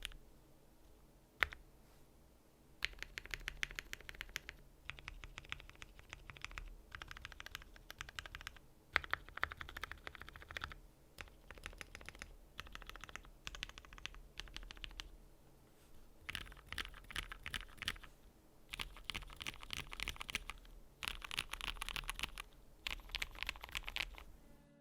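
Voice65 mechanical keyboard with lubed Cherry MX Black Hyperglide linear switches on a polycarbonate plate, its keys pressed in repeated bursts of clacks with short pauses between them. A single keystroke comes first, then modifier keys are tested, and from about halfway through the bottom-row letter keys are typed fast and densely.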